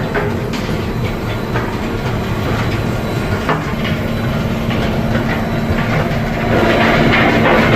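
An engine running with a steady hum under continuous rattling and clattering, growing louder about two-thirds of the way through.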